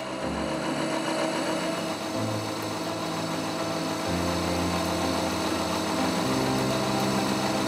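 KNUTH VHF 3.2 universal milling machine's vertical spindle running an end mill through a metal workpiece: a steady machine whine with cutting noise. Background music runs under it, its low bass notes changing about every two seconds.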